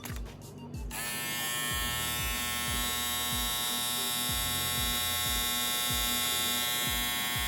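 Kemei KM-2024 electric shaver switched on about a second in, then running with a steady buzzing hum.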